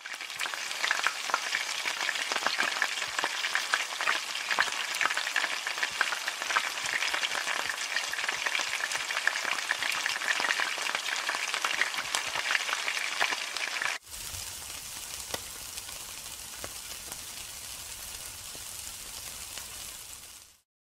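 Food frying in hot oil in a wok, sizzling with dense crackling and popping. About fourteen seconds in it cuts to a quieter, steadier sizzle of meat skewers on a grill with a low rumble, which stops abruptly near the end.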